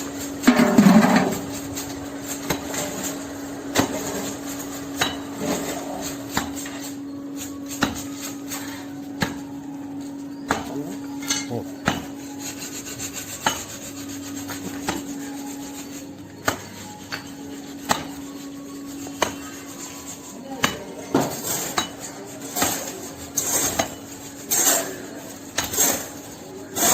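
Hand tools scraping and knocking on masonry in an irregular run of short strikes and rasps, over a steady low hum.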